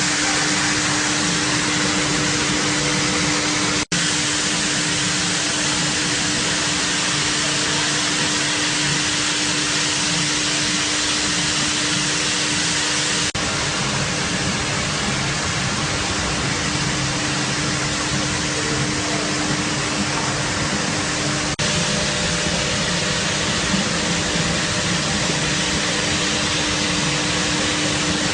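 Industrial carpet washing machine running steadily: a constant machine hum under a loud, even hiss of motors and spraying water, with three brief breaks where the sound drops out for a moment.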